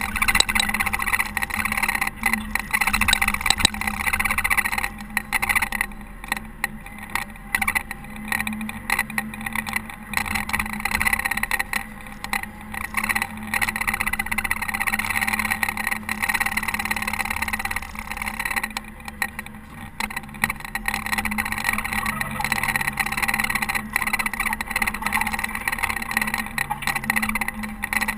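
Diesel engine of a Caterpillar TH330B telehandler running while plowing snow, with a steady drone whose loudness rises and falls, and scattered knocks.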